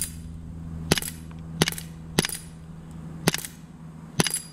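A Winchester Model 11 true-blowback CO2 BB pistol fires five sharp shots at an uneven pace over about three and a half seconds, with a steady low hum underneath.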